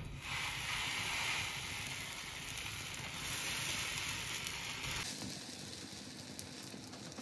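Butter sizzling under bread sandwiches toasting on a flat tawa griddle. The sizzle rises sharply just after a sandwich is turned over, then drops to a softer hiss about five seconds in.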